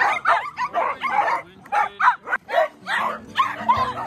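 A pack of small dogs barking and yipping excitedly, many overlapping barks several times a second. Background music comes in about three seconds in.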